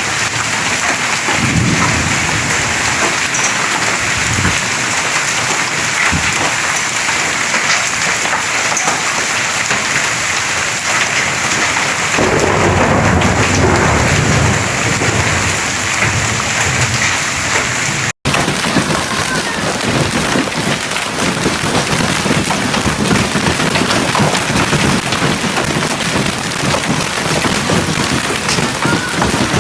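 Hail and heavy rain pelting down in a dense, steady clatter, with a low rumble added for a few seconds from about twelve seconds in. The sound breaks off for an instant about eighteen seconds in and resumes.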